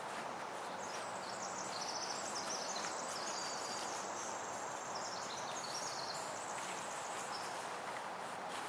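A songbird singing one long, rapid, trilling song that steps up and down in pitch for about five seconds, over a steady outdoor hiss.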